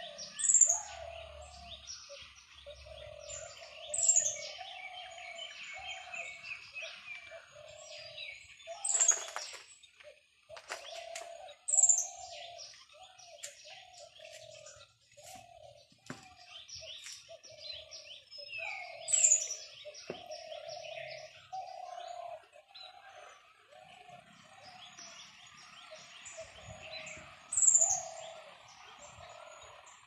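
Birds chirping and calling. A loud, sharp, high chirp that drops in pitch comes about six times, over a busy layer of quicker chirps and a steady run of lower, short repeated notes.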